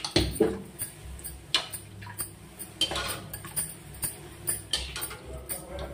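A metal slotted spoon clinking and scraping against a steel kadhai as hot oil is splashed over a puffed bhatura deep-frying in it. The clinks come irregularly, several times a second at most.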